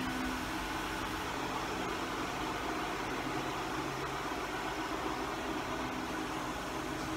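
Ram 1500's 3.6L Pentastar V6 idling, a steady low hum under an even hiss.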